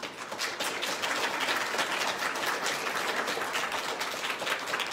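Audience applauding: many people clapping at once, starting suddenly and carrying on steadily.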